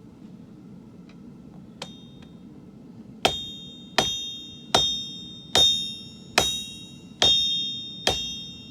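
Blacksmith's hammer striking steel on an anvil while forging a sword: a light tap, then seven ringing blows a little under a second apart, each leaving a high metallic ring that fades before the next.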